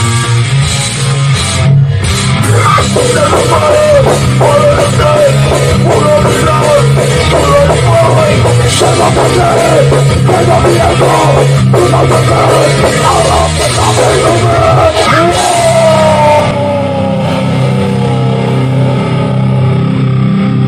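A hardcore band playing live in a rehearsal studio: distorted electric guitars, bass and drums with shouted vocals. Near the end the cymbals drop out and the band holds a final ringing chord as the song closes.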